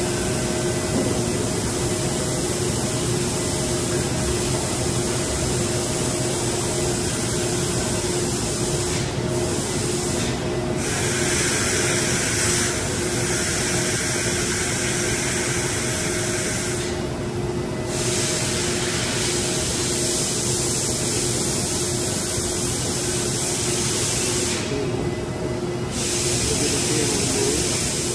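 Northwood CNC router running, with a steady tone under a loud air hiss. The top of the hiss cuts out briefly four times.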